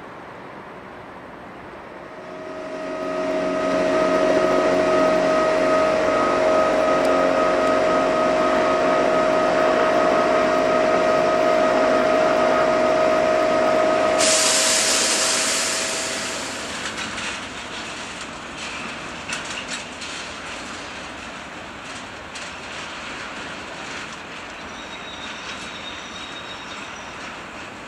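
Railway trains: a loud steady whine with overtones lasting about twelve seconds, cut off abruptly, then a quieter rumble and rattle of trains with scattered clicks.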